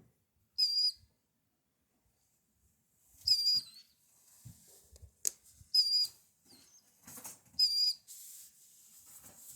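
Baby killdeer chicks peeping: four short, high-pitched calls a couple of seconds apart, with soft rustling and a sharp click between them.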